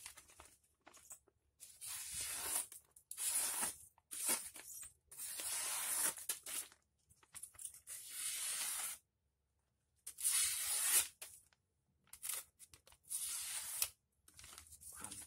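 Steel kitchen knife slicing through a sheet of paper to test its sharpness: about ten short, scratchy tearing cuts, with a brief pause about two thirds of the way through. The blade is very sharp.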